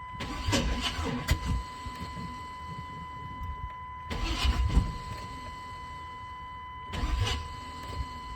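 Starter cranking the 1996 Chevrolet K1500's 5.7-litre V8 in three short bursts. The engine tries to fire but does not start: a crank-no-start fault that the owner thinks might be a bent valve.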